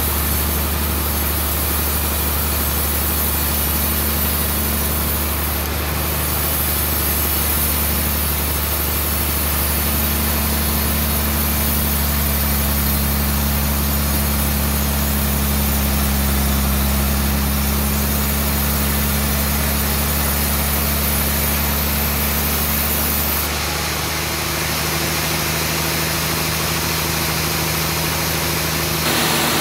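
Large sawmill log bandsaw running as it cuts through a trembesi (rain tree) log: a loud, steady machine drone with a deep hum. The tone shifts about three-quarters of the way through.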